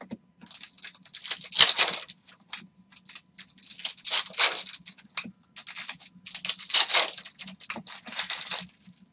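Foil trading-card pack wrappers being torn open and crinkled, with the cards handled and shuffled in hand: irregular bursts of crackling and tearing.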